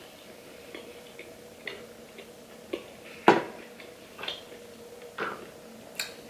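Close-up chewing of a crispy fried chicken wing: scattered soft clicks and crunches, with one louder crunch about three seconds in, over a faint steady hum.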